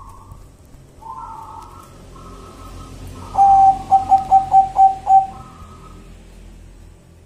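Zebra dove (perkutut) cooing. Softer coos come first. Midway there is a loud run of about six short staccato notes, each at the same pitch, before the softer coos resume.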